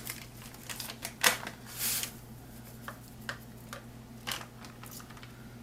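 Light clicks and taps of kitchen handling as a packet of sweet pickle mix is emptied into a pot, with a brief rustle of the packet about two seconds in.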